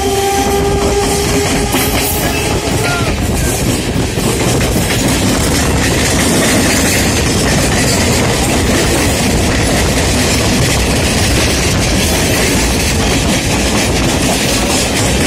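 Indian Railways EMU suburban trains running at speed side by side, heard from an open doorway: a loud, steady rumble of wheels on rail with clickety-clack over the joints.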